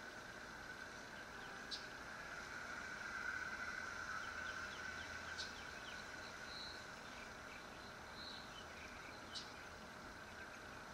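Faint steady background hiss and hum, with three brief sharp clicks and a few faint high chirps.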